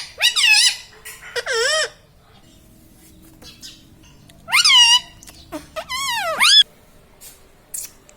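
Indian ringneck parrot calling: several short, high calls that rise and fall in pitch, a cluster in the first two seconds and another about halfway through.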